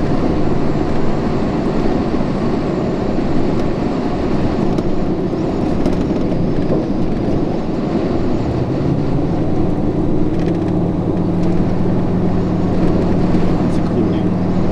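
A car driving along a road, heard from inside the cabin: a steady rush of road and engine noise, with a steady low engine hum coming up about halfway through.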